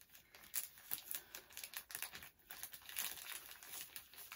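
Plastic packaging bag crinkling in a run of short, irregular crackles as fingers pick and pull at it, trying to tear it open by hand, with a brief lull about two seconds in.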